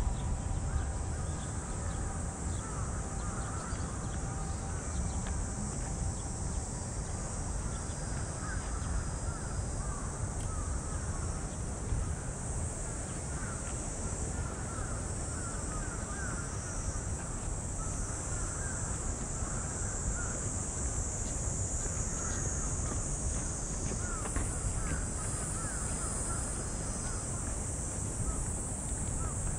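Crows cawing on and off over a steady, high-pitched cicada drone, with a low rumble underneath.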